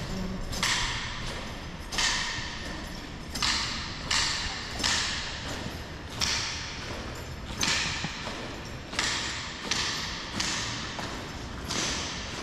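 Honor guards' boots striking a marble floor in a slow, regular marching cadence: a heavy step about every second and a half with lighter ones between, each echoing in a large stone hall.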